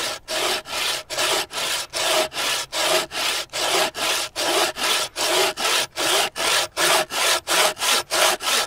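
A 21-inch Bahco peg-tooth bow saw blade cutting through a small log in a steady rhythm of quick, even back-and-forth strokes. The teeth are freshly hand-filed and bite cleanly, with no rattling or vibration.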